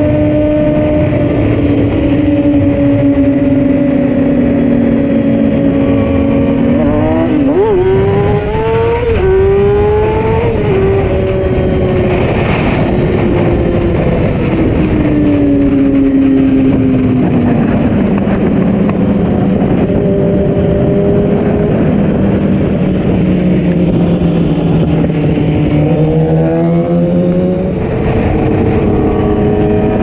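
Sport motorcycle engine running at road speed under heavy wind rush. The engine pitch climbs sharply about seven seconds in, eases back down through the middle, and climbs again near the end as the rider opens the throttle.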